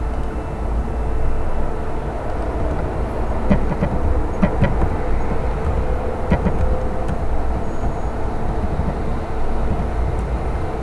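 A steady low rumble with a faint hum, and a few short clicks in the middle.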